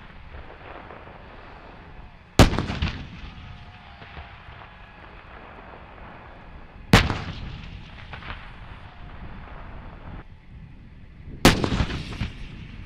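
Three shots from M109 Paladin 155 mm self-propelled howitzers, about four and a half seconds apart, each a sharp blast followed by a rolling echo.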